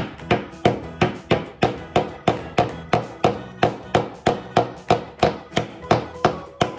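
Small claw hammer striking a nail into a thin wooden board, a steady run of light blows about three a second.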